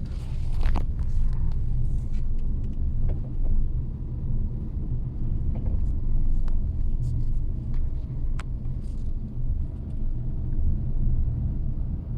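Geely Coolray cabin noise while driving: a steady low road rumble with irregular sharp knocks and creaks from the rear. These are the right half of the folding rear seatback, left unlatched, rattling on its lock.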